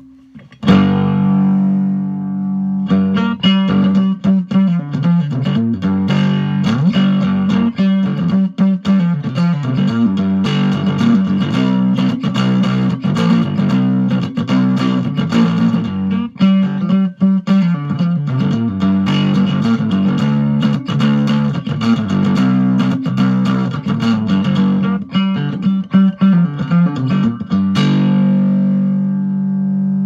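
CBGitty Hubcap Howler, a cigar-box-style guitar with a hubcap resonator, strummed and picked. An opening chord and a short pause are followed by a riff over a steadily ringing low drone note, ending on a chord left to ring.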